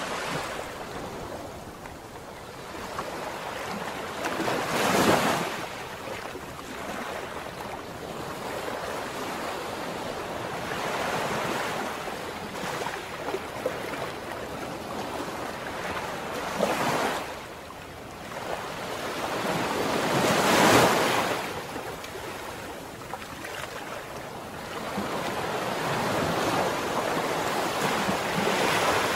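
Seawater rushing and splashing along a moving boat's hull, mixed with wind noise, in a steady wash that surges louder about five seconds in and again around seventeen and twenty-one seconds.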